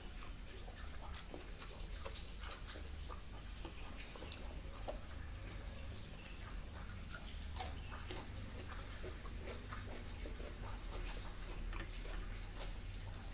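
Close-miked eating sounds: chewing, with many small wet mouth clicks and smacks, and two sharper clicks about seven seconds in. A low steady hum runs underneath.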